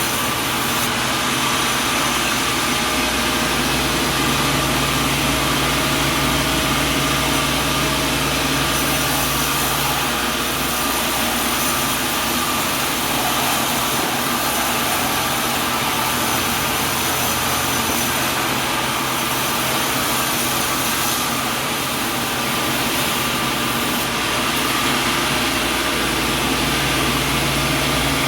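Machinery running steadily, a constant engine-like drone with a steady hum whose low part shifts pitch a few times.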